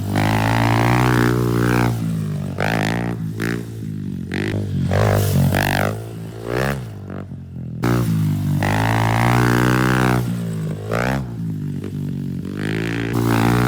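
Music with a steady low droning bass and a pitched lead line that bends up and down in phrases.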